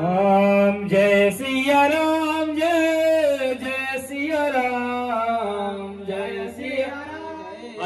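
Hindu devotional singing played through a loudspeaker system: one voice holding long notes that glide up and down, with a steady low hum underneath.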